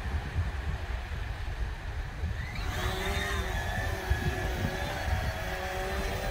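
Quadcopter fishing drone's motors spinning up about two and a half seconds in, then a steady multi-tone whine as it lifts off with a fishing line attached. Wind rumbles on the microphone.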